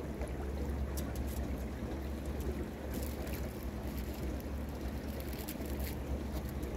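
Boat under way on a lake: a steady low engine drone, with short splashes of water against the hull now and then.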